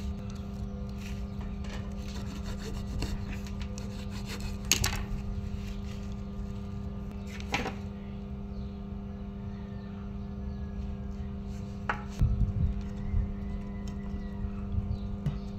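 Metal parts of a welding electrode holder scraping and clicking as they are handled and fitted together, with a few sharper clinks about five seconds in, near seven and a half seconds, and a cluster around twelve seconds, over a steady low hum.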